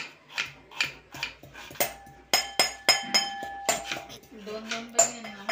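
A knife chops onion on a wooden board in quick knocks. About two seconds in, a metal pounder starts striking inside a steel pot, each blow ringing.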